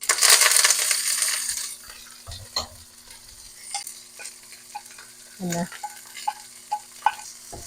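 Chopped onion, ginger and green chili hitting hot oil with mustard seeds and curry leaves: a loud sizzle at once that eases off after about two seconds into a steady frying sizzle, with a spoon tapping and scraping the pan as they are stirred.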